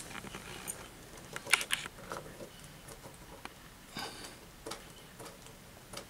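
Scattered light clicks and scrapes as a small screw is tightened into a lever of a metal waterproof end connector, its levers squeezed shut by hand. The sharpest clicks come about a second and a half in and again about four seconds in.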